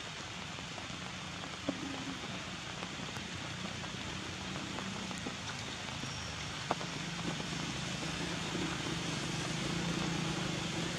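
Steady hissing background noise with a faint low hum growing in over the second half, and two sharp clicks, about two and seven seconds in.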